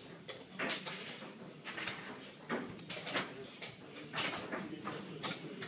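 Sharp, irregular clicks and knocks, about one a second: chess pieces set down on the board and chess-clock buttons pressed during a blitz game.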